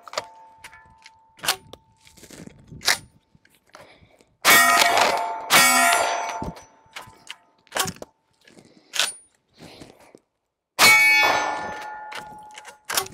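Dickinson Commando pump-action 12-gauge shotgun fired three times, each shot followed by a long metallic ring from the steel targets. Between the shots come sharp clacks of the pump action being worked.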